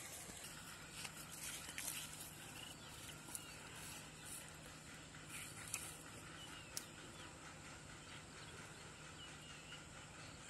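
Faint outdoor ambience: light rustling and footsteps in grass with a few sharp ticks, faint bird chirps, and a low steady hum that sets in about half a second in.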